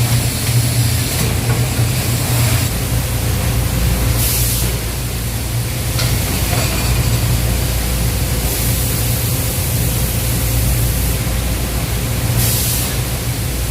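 Rice milling and packaging machinery running with a steady low hum. Stretches of hissing rush come and go on top of it: about four seconds in, for a few seconds from about eight seconds in, and again near the end.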